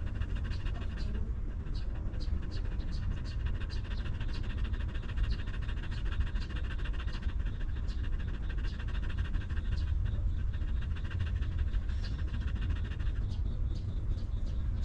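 Mother dog panting steadily over her nursing newborn puppies, with a steady low rumble underneath.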